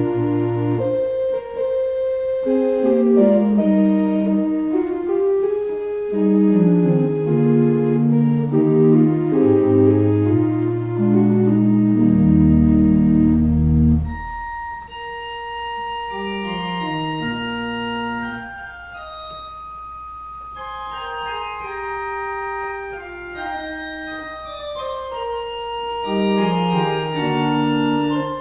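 Slow organ music: a melody over held chords, with deep bass notes about halfway through, then a softer, higher-pitched passage.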